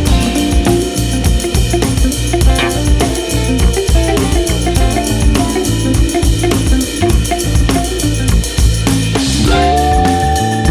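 Background music: a band track with a steady drum-kit beat, bass and guitar.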